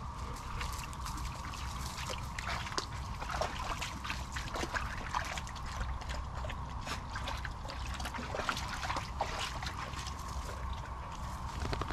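Dogs wading through a shallow creek: water sloshing and splashing around their legs in a string of small irregular splashes, over the trickle of the stream.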